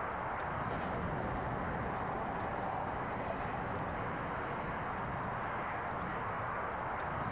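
NSWGR 620/720 diesel railmotor set running along the line: a steady, even rumble of the railcars in motion.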